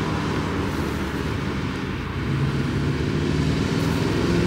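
Modified Porsche Cayenne track car driving past on the circuit, its engine running steadily and then rising in pitch and growing a little louder from about halfway as it accelerates.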